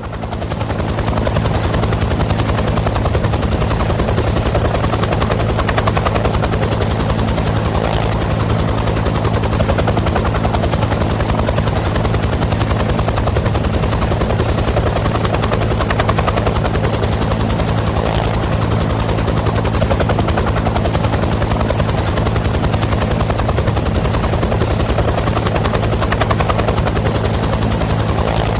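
Bell UH-1 Huey helicopter running steadily: a fast, even chop of the two-blade main rotor over the hum of its turboshaft engine. It fades up over the first second and then holds constant.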